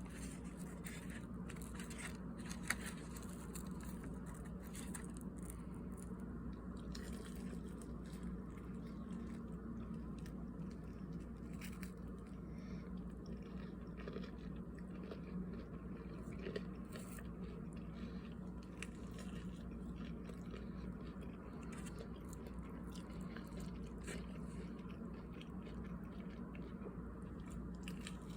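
A person chewing crunchy fried food close to the microphone, with many small crunches and clicks over a steady low hum.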